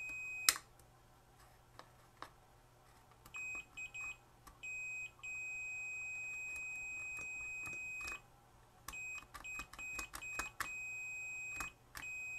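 A multimeter's continuity beeper, sounding a steady high tone while the probes test a timing light's power switch. The tone cuts in and out: a short beep, a few brief chirps, one long beep of about three seconds, then broken chirps and another steady beep near the end, with light clicks of probe or switch contact between.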